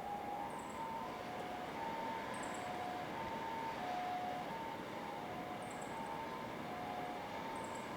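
Japanese ambulance siren sounding its two-tone hi-lo "pee-po" call, each tone about 0.6 s long, as the ambulance drives away, over a steady rumble of road and rail noise.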